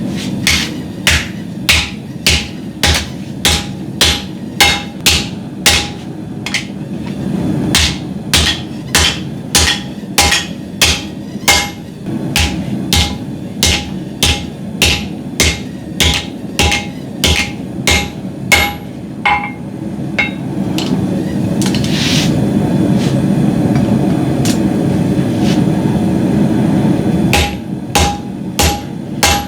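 Forging hammer striking hot high-carbon steel on a 200 lb anvil, about two blows a second, each with a short metallic ring. The blows stop for about seven seconds before the end while a steady rushing noise carries on, then the hammering starts again.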